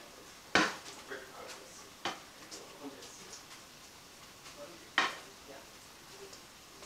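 Wooden spoon stirring a stir-fry in a frying pan, knocking sharply against the pan three times, about half a second, two seconds and five seconds in, with lighter taps and scrapes between and a faint sizzle underneath.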